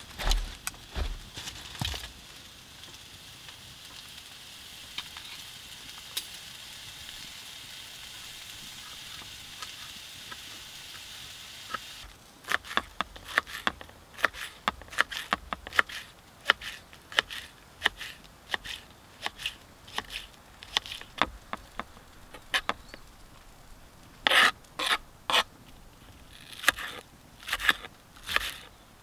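Hot dogs sizzling steadily in a frying pan on a small wood stove, after a few knocks at the start. From about twelve seconds in, a knife chops green onion and then a yellow onion on a cutting board: a long run of sharp, irregular chops, one or two a second.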